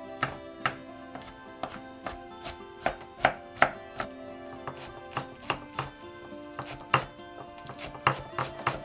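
Chef's knife chopping onion and green onion on a wooden cutting board: sharp knife strikes on the board, about two to three a second. Soft background music plays underneath.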